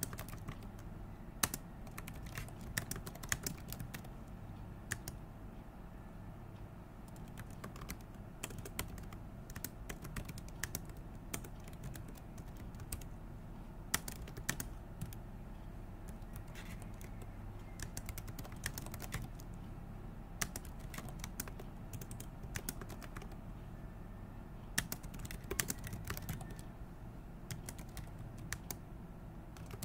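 Typing on a computer keyboard: irregular runs of quick key clicks with short pauses between them, over a low steady hum.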